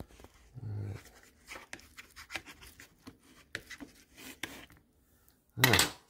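Metal fork scraping and tapping against a plastic Nordic Ware microwave omelet maker, working a stuck omelet loose from the pan in short scratchy strokes. A brief low voice sound comes about half a second in, and a louder short grunt-like voice sound comes near the end.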